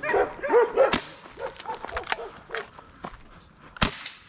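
Several dogs barking in quick succession, the barking dying away about a second in. After that come fainter crunching steps on a gravel road, and one sharp, loud noise near the end.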